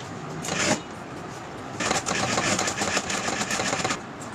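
A factory machine runs with a dense, fast ticking for about two seconds, starting a little under two seconds in and stopping just before the end. A shorter burst of noise comes just before that.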